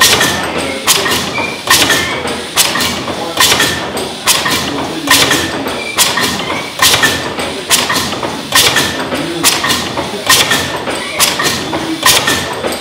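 Stationary compound mill steam engine running slowly and steadily. A sharp knock comes a little under once a second, with a lighter one between each pair.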